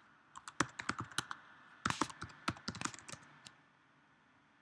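Computer keyboard typing: two quick runs of keystrokes with a short pause between them, as a username and password are typed in, then a lone keystroke about three and a half seconds in.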